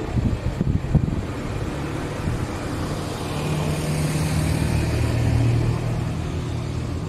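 A car engine running with a low, steady hum that builds through the middle, is loudest about five seconds in, then eases off.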